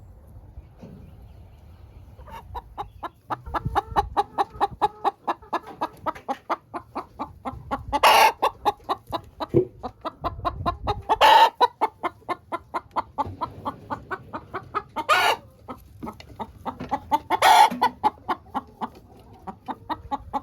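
Chickens clucking in a fast, steady stream, several clucks a second, with a louder, longer squawk breaking through every few seconds.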